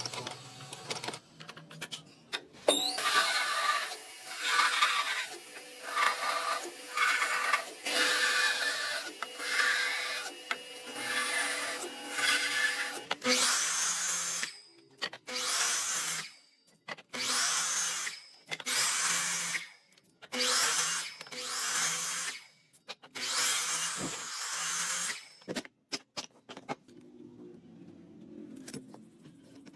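A power tool working wood in repeated passes of about a second each, stopping near the end.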